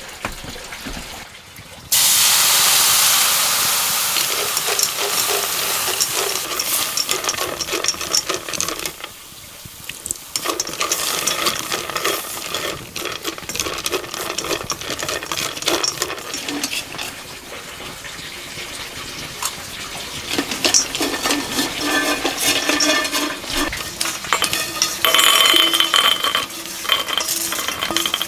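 Liquid poured into a hot wok of peanuts hisses loudly about two seconds in and fades over several seconds. Then the peanuts are stirred with chopsticks as they roast, rattling and clicking against the wok with a light sizzle, and near the end they are tipped into a steel bowl.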